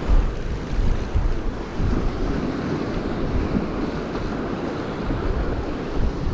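Surf breaking and washing over the rocks of a jetty, with wind buffeting the microphone in uneven low gusts, strongest about the first second.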